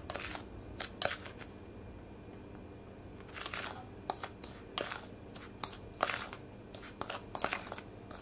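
A metal spoon stirring dry spice seasoning in a small bowl, giving irregular gritty scrapes and light clicks of the spoon against the bowl.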